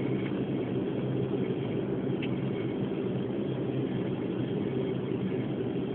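Steady engine drone and rolling noise inside an airliner's cabin as it taxis on the runway after landing.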